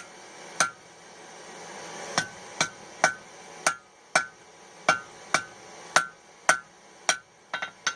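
Blacksmith's hand hammer striking mild steel flat stock on an anvil, about fifteen blows spaced roughly half a second apart, each with a short metallic ring. A quick run of lighter taps comes near the end.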